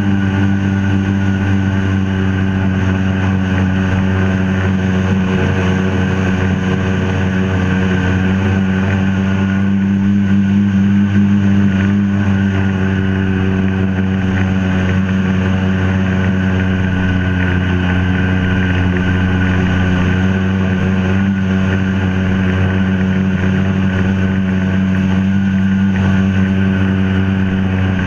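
A 1996 Sea-Doo GSX personal watercraft's two-stroke engine running at steady high throttle under way, its drone holding an even pitch, over the rush of water spray.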